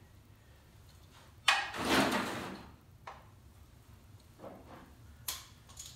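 Handling noises from working the lower unit onto a 1963 Johnson outboard: a sudden scraping clatter about a second and a half in that lasts about a second, then a few sharp clicks near the end.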